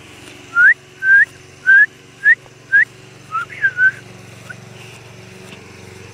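A person whistling to call a dog: five short rising whistles about half a second apart, then a few quicker ones.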